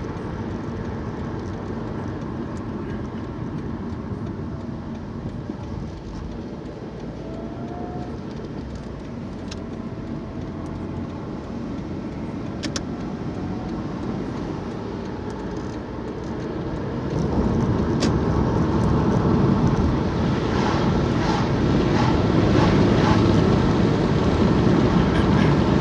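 Car driving: steady road and engine noise, which steps up louder about two-thirds of the way through and stays louder.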